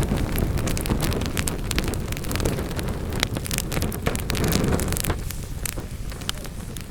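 Wood fire crackling and popping in a fireplace, with many sharp snaps over a low steady rumble. The crackles thin out and the fire gets quieter from about five seconds in.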